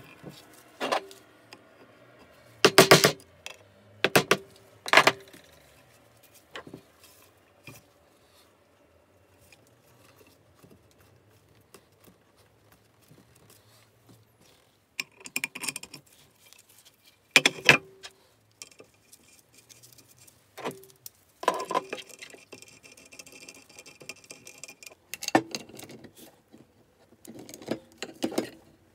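Metal engine parts and hand tools clinking and knocking during work on an oil pump: scattered sharp metallic clinks with brief ringing, a cluster of them a few seconds in, more in the middle, and a rattling stretch near the end.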